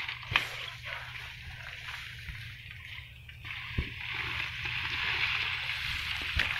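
Water splashing and rustling among swamp water hyacinth, growing louder from about halfway through, as a hooked snakehead thrashes on the line, with a few sharp clicks early on.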